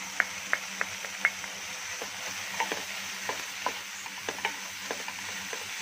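Vegetables and paneer frying in a nonstick pan with a steady sizzle, while a wooden spatula stirs and scrapes against the pan. Four sharp taps come in the first second or so, then irregular knocks and scrapes of the spatula.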